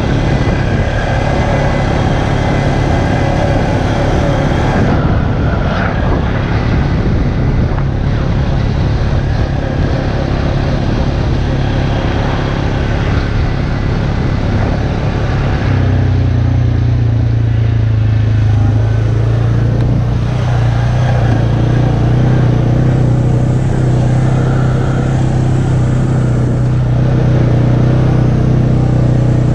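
Single-cylinder four-stroke ATV engine running steadily at trail-riding speed, with tyre and chassis noise on a dirt trail. About halfway through, the engine note drops a little and becomes louder and more even.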